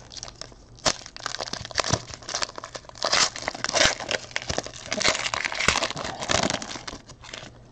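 Clear plastic bag crinkling and rustling as it is pulled open and worked off an encased trading card, in irregular crackles that are busiest through the middle and thin out near the end.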